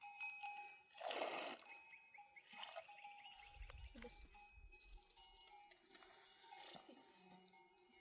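Faint bells on goats or sheep clinking, with a short animal call about a second in.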